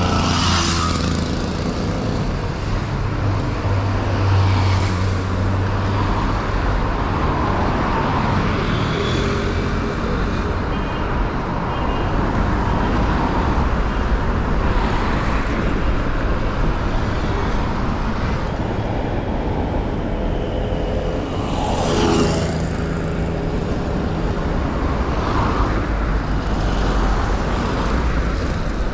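City street traffic: cars and other vehicles running and passing, with a steady low engine hum. One vehicle passes close just after the start and another about three-quarters of the way through.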